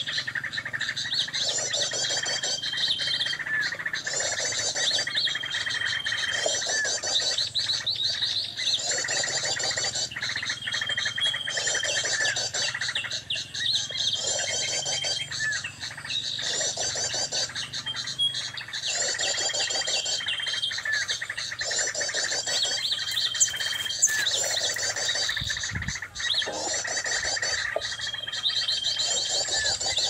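Sogon bird song used as a trapping lure: a burst of rapid high chattering notes ending in a held high whistle, repeated in near-identical phrases about every three seconds.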